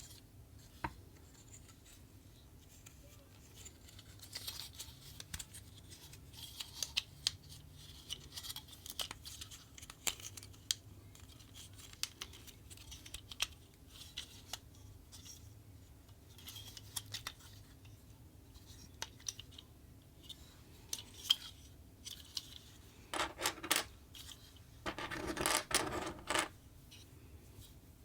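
Hands unboxing a plastic action figure: light clicks, scratches and rustles of plastic and cardboard packaging. Near the end come two longer rasping bursts made of rapid strokes.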